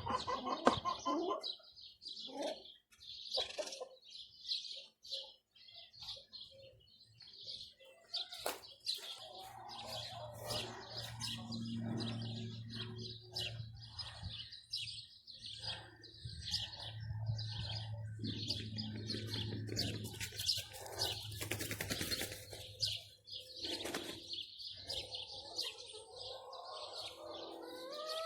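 Small birds chirping repeatedly, with domestic chickens clucking now and then. A low steady hum runs through the middle stretch.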